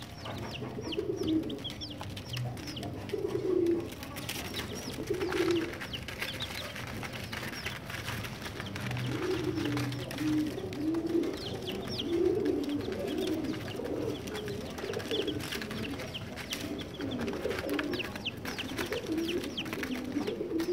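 Baby chicks peeping, many short high falling peeps, over a low cooing that repeats every second or two and runs almost without pause in the second half.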